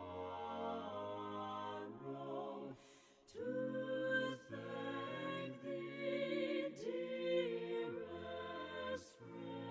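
Soft a cappella choir singing a hymn in slow, held chords with some vibrato, breaking briefly about three seconds in before the next phrase.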